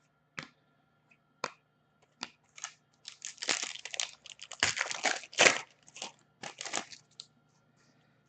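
Plastic trading card pack wrapper being torn open and crumpled, with a few light clicks of cards being handled first and the crinkling loudest in the middle.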